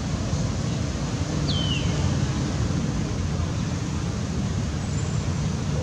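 Steady low outdoor background rumble, with one short, high chirp falling in pitch about one and a half seconds in.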